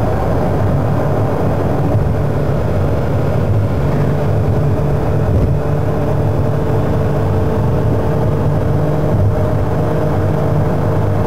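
A car's engine and road noise heard from inside the cabin while driving at a steady pace: a continuous, even drone.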